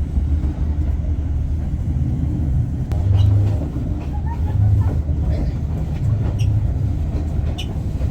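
Passenger train running along the track, heard from inside the carriage: a steady low rumble that swells every second or two.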